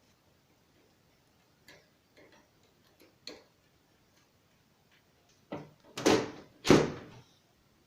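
Computer parts being handled during a desktop PC assembly: a few light clicks, then three louder knocks close together near the end.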